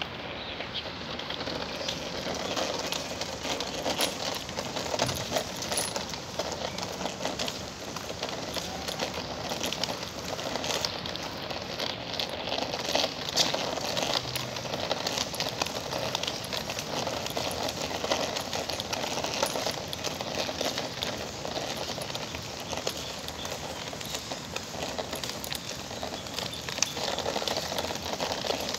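Steady rain falling, a dense crackle of pattering drops.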